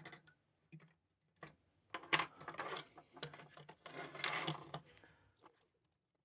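Hand tools being set down and a circuit board being turned over and handled on a wooden workbench: a few light clicks, then a busier run of clicks and rattles for about three seconds that stops shortly before the end.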